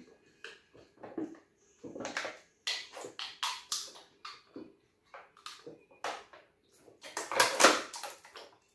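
Irregular clatter of dishes and utensils being handled: many short clinks and knocks, loudest about seven to eight seconds in.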